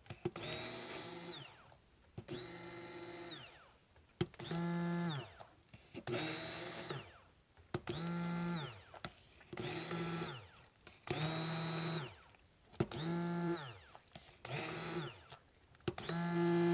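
Immersion stick blender run in short pulses, about ten bursts of a second or so each, its motor whine rising as it starts and falling away as it stops each time. It is blending separated hot-process soap batter in a slow cooker to bring it back together.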